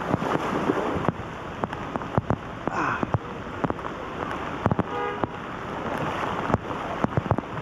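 Heavy rain falling, with many sharp drops hitting close by. A brief pitched sound comes in about five seconds in.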